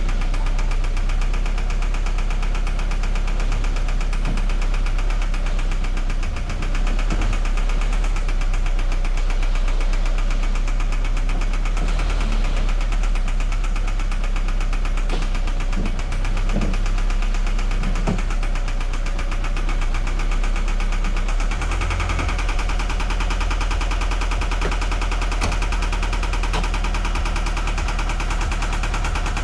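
2013 Scion FR-S's 2.0-litre flat-four boxer engine running steadily at idle with a knocking sound. The knock goes with a misfire on cylinder 4 and metal glitter in the oil pan: the engine is damaged and needs replacing.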